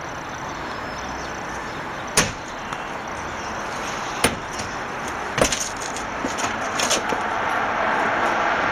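Steady road traffic noise, growing a little louder near the end, with a few sharp knocks about two, four and five and a half seconds in and a small cluster near seven seconds.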